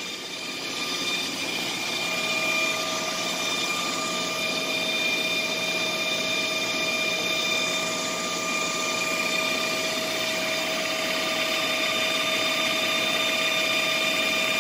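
Rebuilt Krauss Maffei extruder gearbox running on a test stand, driven by its electric motor: a steady mechanical hum with a few even whining tones from the gears, one lower tone joining about two seconds in. It runs smoothly, with no issues and no vibration found on the test.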